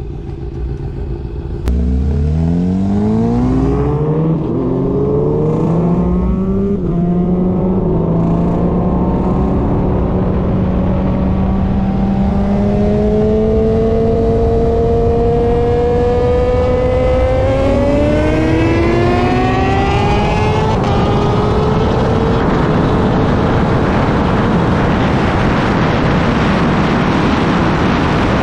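Shelby GT350's cat-deleted 5.2-litre flat-plane-crank V8, running on E85, accelerating hard at full throttle: it starts pulling about two seconds in, and the revs climb and then drop at each of several gear changes. In the last quarter, steady rushing wind noise at high speed covers most of the engine.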